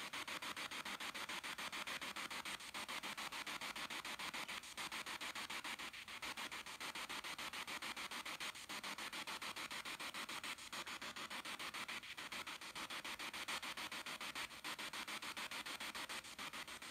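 Spirit box radio scanning through stations: a steady hiss of static, chopped into rapid, even pulses by the sweep, with no voices coming through.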